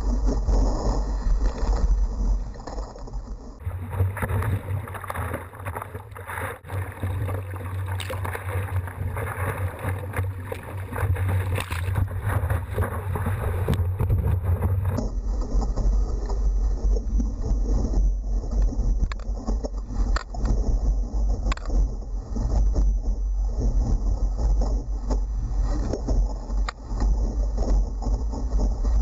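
Water rushing and wind buffeting a GoPro camera's microphone while surfing, heard as a loud, steady rumble and hiss. The sound changes abruptly about four seconds in and again about fifteen seconds in, where the footage is cut.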